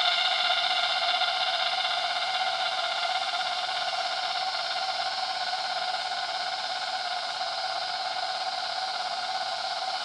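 Cicadas singing loudly: a steady, shrill drone of several held tones that slowly fades.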